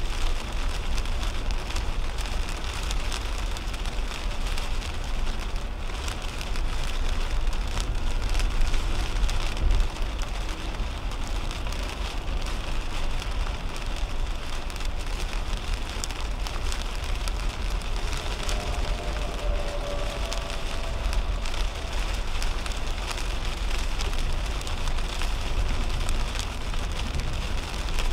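Heavy rain hitting a 2010 Toyota Camry at highway speed, heard from inside the cabin, over a steady low rumble of tyres on the wet road.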